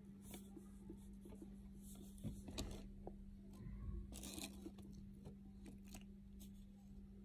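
Quiet handling sounds of a liquid lipstick wand: faint clicks and dabs as it is worked over the lips, and a brief rustle about four seconds in as it is dipped back into its tube, over a steady hum.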